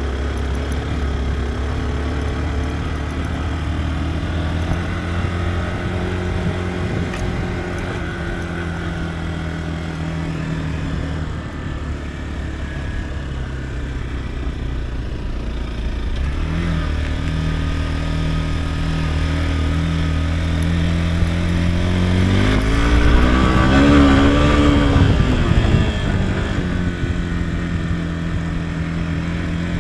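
Motorcycle engine running under way at a steady speed, then revving up and easing back off about three-quarters of the way through, its loudest moment.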